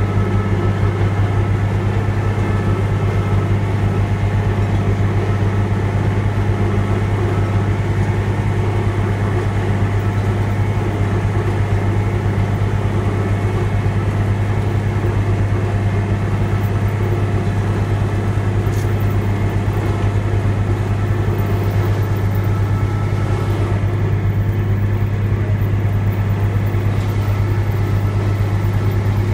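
A train's engine running with a steady low drone that holds an even level throughout.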